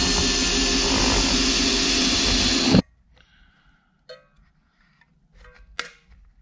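Cordless drill driving a screw into a wooden bracket, its motor running steadily for nearly three seconds and then stopping abruptly. After that there are only a few faint clicks and handling sounds.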